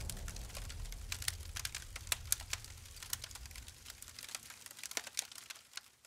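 Faint tail of a logo sound effect: a low rumble fading away after an explosion-like burst, with scattered sharp spark crackles that thin out near the end.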